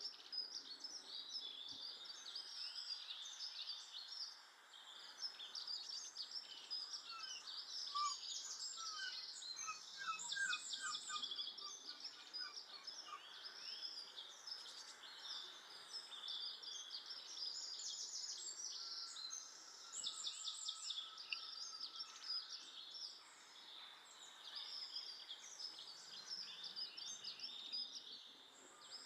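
Small garden birds chirping and twittering in a dense, overlapping chorus of short high calls, with a few lower trilled notes mixed in.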